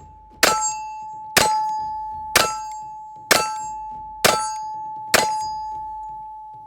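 Rock Island M1911 A1 FS Tact .45 pistol fired six times at about one shot a second, each shot followed by a steel target plate clanging and ringing on. These are the last rounds of the magazine being emptied.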